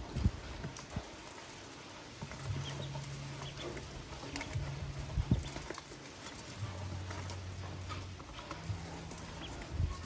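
Newly hatched ducklings feeding from an aluminium basin: short soft peeps and sharp clicks as their bills tap the metal, loudest twice. A low hum comes and goes underneath.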